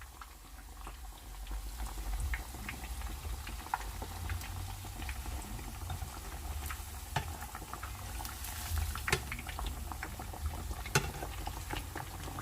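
Pieces of black-pepper pork in crispy-fry batter deep-frying in hot oil: steady bubbling with scattered crackles and pops.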